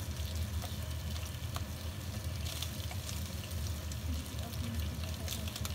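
Prawns sizzling and crackling in hot oil in a wok as a spatula stirs and turns them, over a steady low hum.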